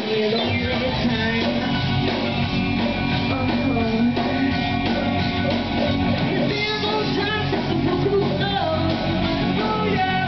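A live rock band playing: electric guitars, drums and bass, with several voices singing. The low end comes in about half a second in.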